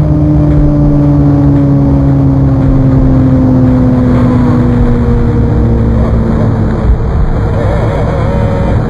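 A loud, steady engine-like rumbling drone whose pitch slowly falls over several seconds, used as a sound effect for zooming in.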